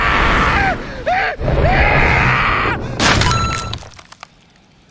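A man screaming in terror in long, arching cries, then a sudden crunching crash about three seconds in.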